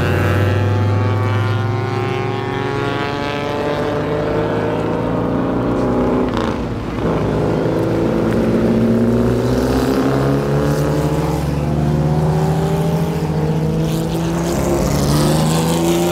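Vintage race car engines passing one after another, among them an open Cobra-style roadster and a Porsche 911-based race car. The engine notes fall in pitch early on, then climb again and again from about halfway as the next cars accelerate away.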